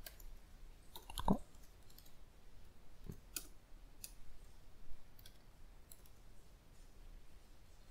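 Faint, scattered computer keyboard keystrokes: a few separate key clicks, a louder one about a second in and several more spread over the next few seconds, as a line of code is typed and deleted.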